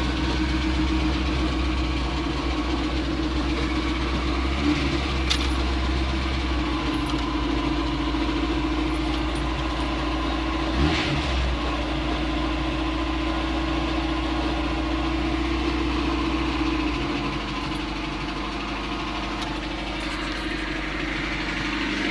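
Carburetted four-cylinder engine of a VAZ-2109 Lada idling steadily from cold on the choke; its idle settles a little lower about seventeen seconds in. The engine has a knock that the owner suspects may come from the camshaft or its cam followers.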